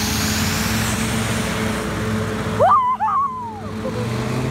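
Hovercraft engine and fan running steadily. About two and a half seconds in, a short, loud warbling call that slides up and down in pitch cuts through.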